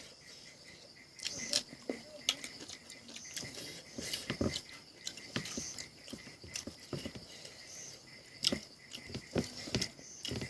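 Close-up eating sounds: chewing and lip smacking, heard as irregular wet clicks at an uneven pace. Crickets chirp steadily behind.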